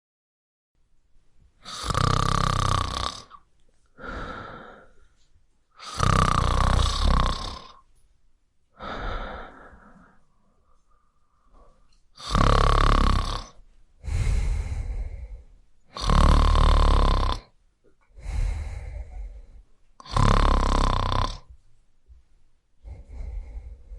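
A person snoring: five loud snores, roughly four seconds apart, each followed by a quieter breath.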